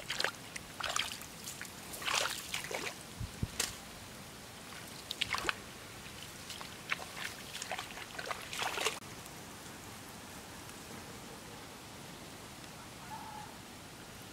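Footsteps swishing through wet grass and sloshing in shallow muddy water, in irregular bursts for about the first nine seconds, then only a faint steady hiss.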